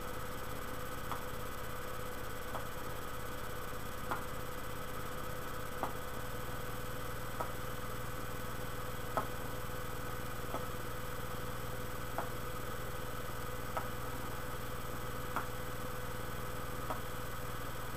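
Steady hum and hiss of room tone, with faint soft clicks about every second and a half.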